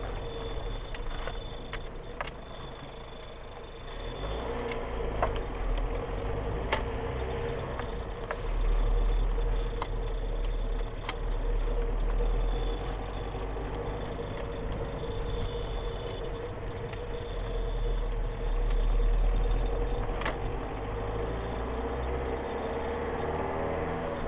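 Car engine and road noise heard inside the cabin through a dashcam's built-in microphone, growing louder twice as the car pulls away and speeds up. A few short clicks and a constant faint high-pitched whine sit over it.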